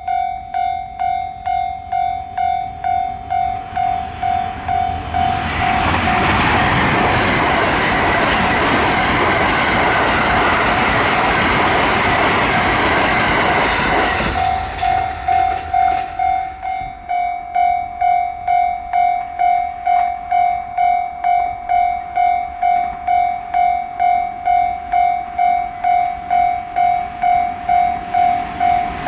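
Japanese level-crossing warning bell ringing in a steady, even rhythm of about one and a half strokes a second. From about five seconds in, a train runs over the crossing for some nine seconds, its rumble and wheel noise covering the bell, which rings on after the train has gone.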